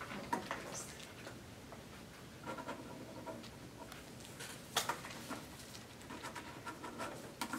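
Faint scratching of pens writing on paper as a signed agreement is filled in, with a couple of sharp clicks from a pen or handled paper, one about five seconds in and one near the end.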